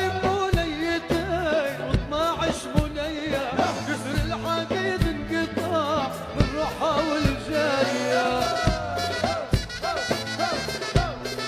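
Background music: a song with a singing voice and melody over a steady drum beat.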